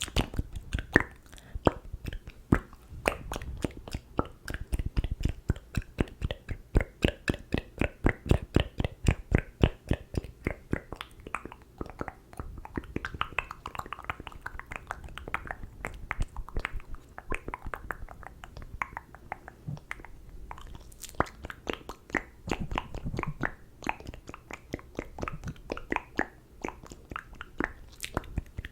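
Close-miked ASMR mouth sounds: a fast run of wet clicks, pops and smacks from tongue and lips, several a second, with no words.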